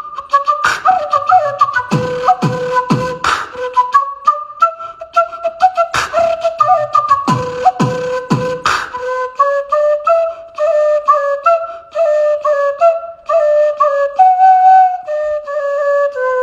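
Background music: a flute-like woodwind melody over busy percussion, with deep falling drum hits in two clusters, about two seconds in and again around seven seconds in.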